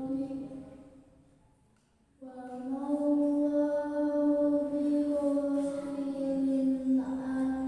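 A girl recites the Qur'an in melodic qiro'at style into a handheld microphone. A long held phrase fades away over the first two seconds, and after a brief breath pause a new long sustained note begins, rising slightly in pitch as it settles and holding through the rest.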